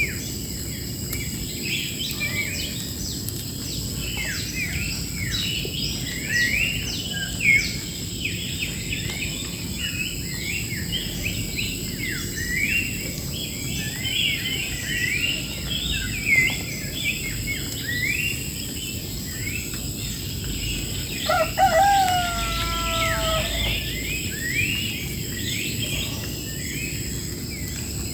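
Many small birds chirping and twittering in a dense, continuous chorus, over a steady high-pitched insect drone. About three-quarters of the way through, a rooster crows once.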